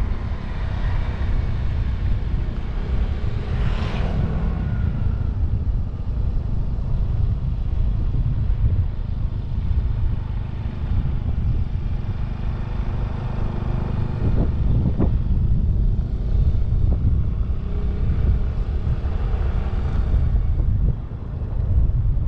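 Motorcycle engine running steadily under way, with heavy wind rumble on the microphone; the sound swells briefly about four seconds in.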